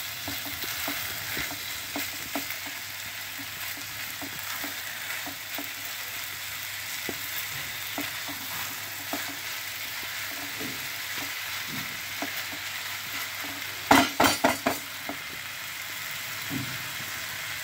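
Rice, dal and chopped vegetables sizzling in a non-stick kadai as they are stirred and scraped with a silicone spatula: a steady frying hiss with soft scrapes and ticks as the khichuri mix is sautéed dry. Near the end comes a quick run of four or five loud knocks.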